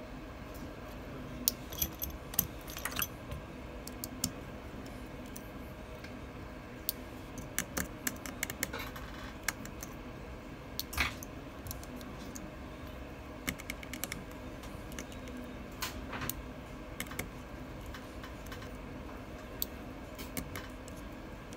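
Small, irregular metallic clicks and ticks of a precision screwdriver working the tiny screws inside an iPhone, with small parts being set down, over a steady low hum.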